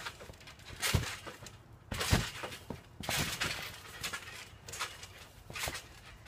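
Thumps of people landing on a trampoline mat, about once a second, with a jangling clatter from the springs; the loudest landing comes about two seconds in.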